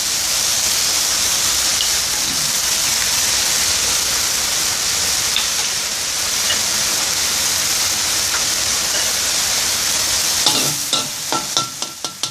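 Minced pork frying in oil and oyster sauce in a steel wok: a steady sizzling hiss. Near the end the sizzle drops and a few sharp clicks come from the metal spatula moving in the wok.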